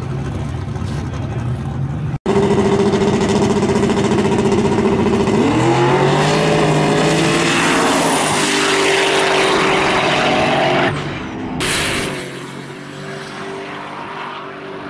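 Turbocharged GMC S10 drag truck's engine running steadily at the line, then launching hard: the engine note climbs sharply and holds at full throttle. About eleven seconds in it eases off with a brief hiss and runs on fainter down the track.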